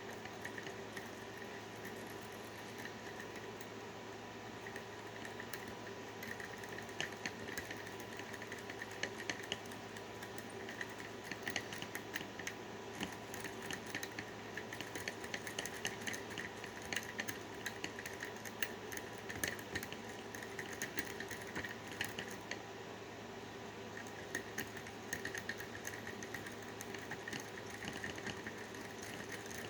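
Improvised paperclip rake and tension tool scraping and clicking in the wafer lock of a filing cabinet, many small irregular clicks as the wafers are raked, over a steady hum.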